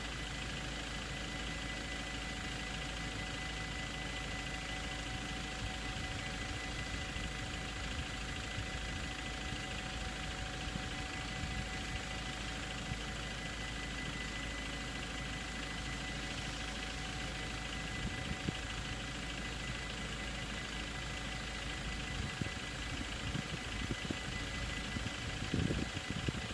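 Dutch automatic half-barrier level-crossing warning bells ringing steadily while the barriers are down, a sign that a train is approaching. Beneath them is a low traffic hum, with a few louder low rumbles near the end.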